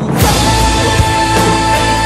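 Background music: a loud, full section kicks in right at the start, with a steady drum beat under a long held note.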